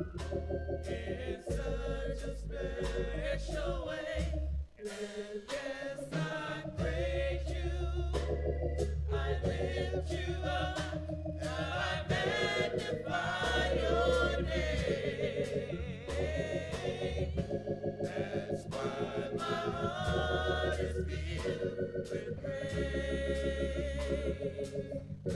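Gospel praise team of women's and a man's voices singing a worship song into microphones, over accompaniment with long held bass notes and a steady beat.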